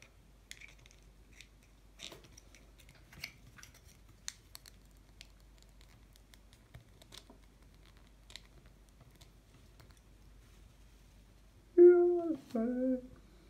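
Faint, scattered clicks and taps of a small plastic toy figure being handled and fitted onto its clear plastic stand. Near the end, a short two-part vocal exclamation from a person, the loudest sound.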